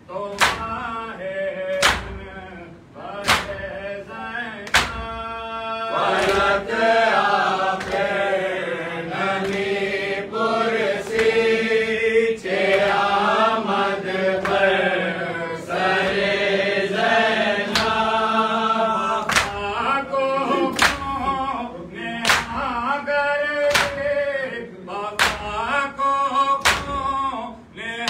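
Men chanting a Farsi noha (Shia mourning lament), with sharp slaps of open hands on bare chests (matam) keeping a steady beat. The slaps come closer together in the second half.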